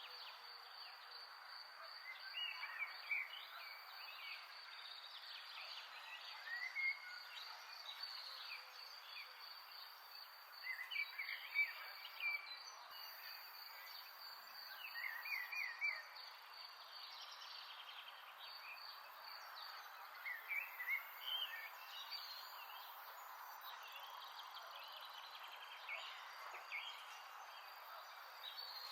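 A steady, high, pulsing insect trill with short chirping calls coming and going over a soft, even background hiss.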